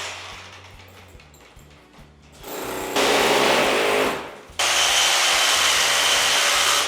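Rotary hammer drill boring up into the ceiling, in two bursts: a short one about three seconds in, then a longer one of about two seconds with a steady high whine that stops near the end.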